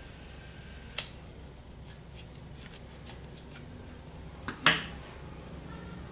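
Small clicks and ticks of a camera zoom lens being handled during disassembly: one sharp click about a second in, then a louder double click near five seconds, with faint ticks in between.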